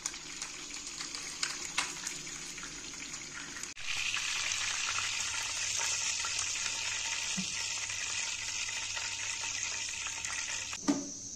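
Hot oil sizzling in a frying pan on a gas burner as a whole stuffed chicken browns and is lifted out, with a few light clicks of handling. The sizzle turns louder about four seconds in, and a single knock sounds near the end.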